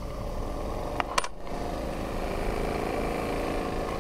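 Miniature marine steam engine running steadily on steam from its boiler at about 30 psi, with two sharp metallic clicks about a second in.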